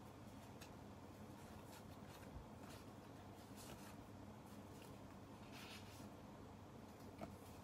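Faint rustling and rubbing of paper memo pads and sticker sheets being handled and shuffled, a few short rustles spread out, with a small tap near the end.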